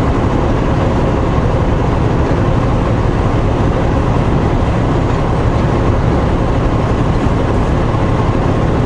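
Steady engine and road noise heard inside a semi-truck's cab while it drives down the highway, with a low rumble and a faint steady hum.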